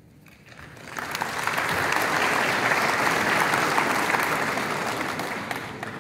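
Audience applauding a potted black in a snooker break. The clapping swells about a second in and dies away near the end.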